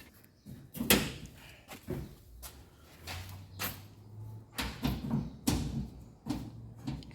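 Sheet-metal cabinet panels of a Speed Queen dryer being handled and fitted back on: a series of knocks and clunks, the loudest about a second in.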